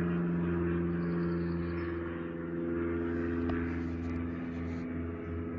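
A steady low hum with several held tones from a running machine.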